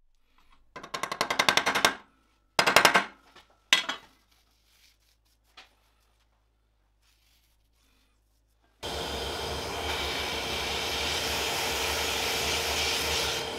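A plastic dust catcher is handled on a steel worktable: a fast rattle, then two loud clatters. About nine seconds in, a steady motor noise with a low hum starts and keeps running.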